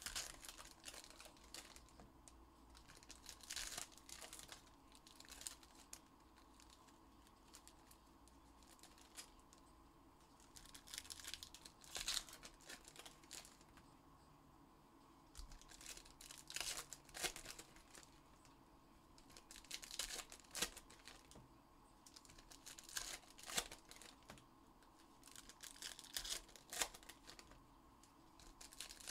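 Faint, irregular crinkling and tearing of trading card pack wrappers as packs of basketball cards are torn open and handled, in short bursts every second or two.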